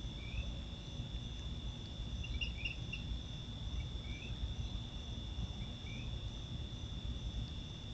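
Crickets trilling in one steady, unbroken high tone, with a few short rising chirps scattered through, over a steady low rumble of background noise.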